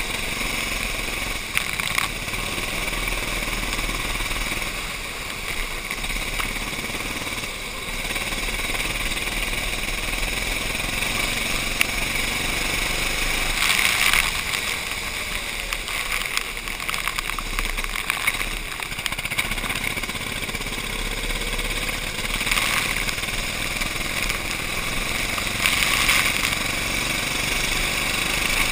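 Racing kart engine running hard, heard from the kart's own onboard camera, over the hiss of water on a wet track. It swells briefly a few times.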